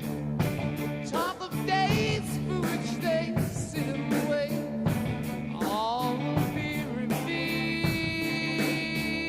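Background rock music with a steady drum beat, bass and a lead line that bends up and down in pitch.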